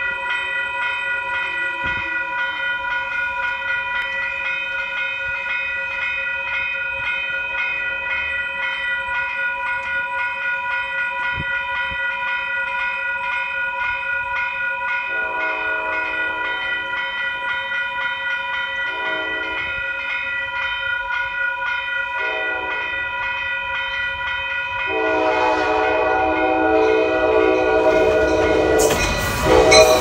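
Grade-crossing warning bell ringing steadily throughout, while the air horn of Amtrak heritage locomotive 406 sounds as the train approaches. The horn is faint at first, then gives three shorter blasts and a long final blast that grows louder. Near the end the locomotive rushes past.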